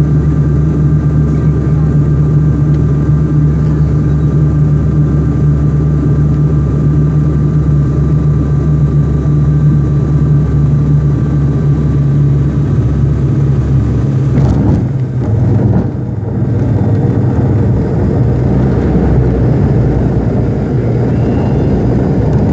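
Jet airliner's engines running at takeoff power: a loud, steady drone with a strong low hum and a thin steady whine above it, briefly dipping and shifting about two-thirds of the way through.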